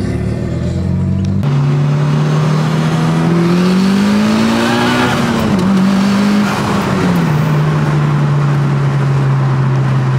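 Mitsubishi Lancer Evolution IX engine heard from inside the cabin over steady road noise. Partway through, the engine note climbs as the car accelerates, then falls back to a steady cruising pitch.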